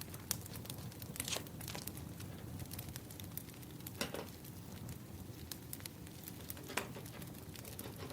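Wood fire crackling: a steady low rumble with scattered sharp pops and snaps, the loudest about a second in, at about four seconds and near seven seconds.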